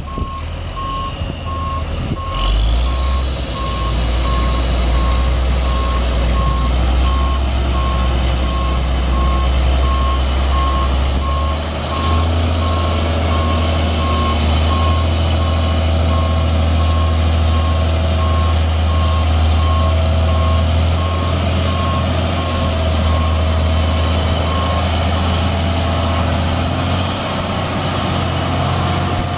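A Sterling T93 mixer truck's diesel engine runs with a steady low rumble while its reverse alarm beeps at one pitch in an even rhythm, the sign that the truck is in reverse.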